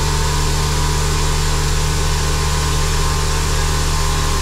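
CNC machining center milling an aluminum engine block: the spindle's end mill cutting steadily under a spray of coolant, a constant hum with an even hiss over it.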